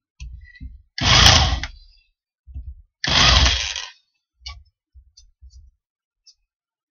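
Electric drill with a countersink bit cutting into wood in two short bursts of about a second each, widening the seat for a screw head. Small knocks and clicks of handling come between and after the bursts.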